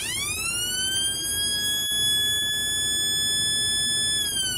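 Homemade transistor siren oscillator sounding through a small loudspeaker, fitted with a 33 microfarad test capacitor in place of the faulty original. The tone swoops up fast, holds steady, then begins a slow glide down near the end, like an American police siren, and close to how its builder remembers it.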